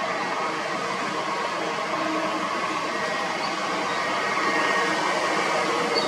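Kobelco SK200 hydraulic excavator running steadily as it digs with its bucket: the diesel engine and hydraulics make an even mechanical noise with a faint held whine, swelling a little about four seconds in.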